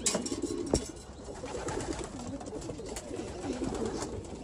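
Several racing pigeons cooing, overlapping low calls that rise and fall, with a few sharp clicks among them.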